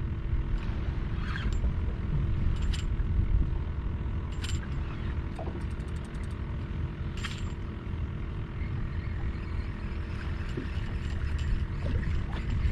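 Low steady rumble of wind and water around a small open boat, with a few sharp clicks from fishing tackle and a quick run of ticks about six seconds in.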